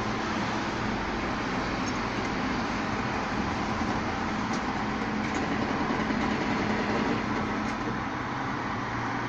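Rotopress rear-loader garbage truck standing and running, a steady engine hum that rises slightly about six to seven seconds in.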